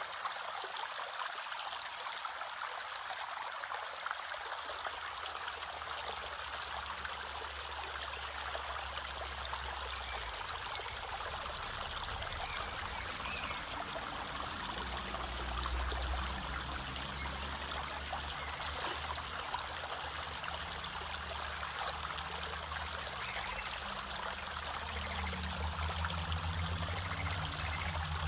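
Shallow stream running over pebbles: a steady rush and trickle of water, with a low rumble joining it after about ten seconds.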